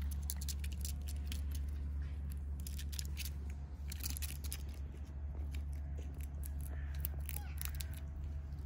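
Quick, sharp scratchy clicks of a squirrel's claws gripping tree bark as it clambers on and up the trunk, over a steady low rumble.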